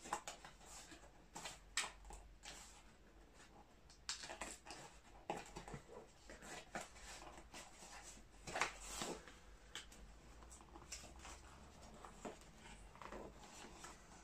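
A cardboard box being worked open by hand: irregular scrapes, taps and rustles of its flaps and tabs, with a couple of sharper knocks about 2 s in and around 9 s.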